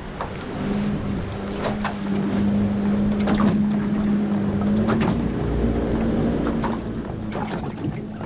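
Steady hum of a boat engine running nearby, over wind on the microphone. Scattered clicks and knocks come as a whiting is wound in on a sidecast reel and landed in the aluminium boat.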